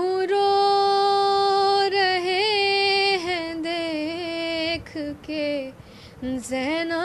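A woman singing a noha, a Muharram lament, unaccompanied: long held notes with wavering ornaments, breaking into shorter phrases about halfway, then sliding up into another long held note near the end.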